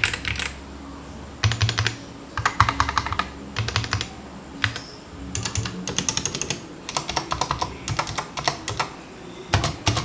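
Typing on a 60% mechanical keyboard with Gateron Red linear switches: quick runs of keystroke clacks in bursts of about a second, with short pauses between.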